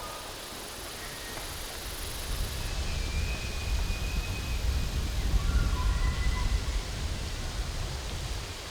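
Wind rumbling on the microphone outdoors, heavier from about halfway through, with a few faint, short, high whistling notes in the distance.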